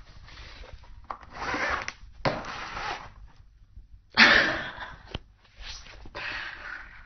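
Cardboard box scraping and rustling as a kitten squirms inside it and pushes through its hand hole. The sound comes in several bursts, the loudest about four seconds in.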